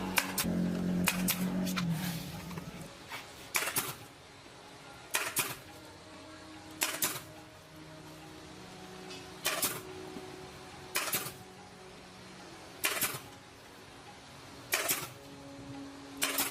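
A pitched running sound dies away in the first two seconds, followed by about eight sharp knocks, some of them doubled, roughly one every one and a half to two seconds.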